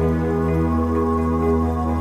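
Ambient new-age meditation music: layered, sustained tones held steadily over a low drone.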